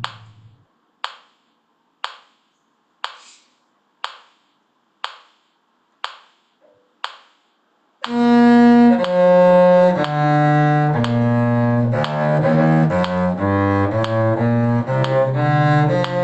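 Even clicks about once a second for eight beats, a count-in. About eight seconds in, bowed string instruments start playing together, a low cello line under higher string parts.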